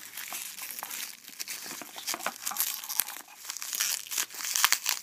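Plastic bubble-wrap packaging crinkling and crackling irregularly as it is handled and pulled off a small LiPo battery pack.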